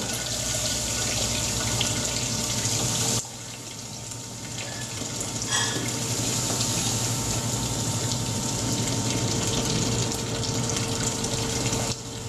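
Milled malt poured in a steady rushing stream from a plastic tub into the hot mash water of a stainless-steel brewing system, over the low hum of the recirculation pump and water running from its return arm. The pour thins about three seconds in, picks up again, and tails off near the end.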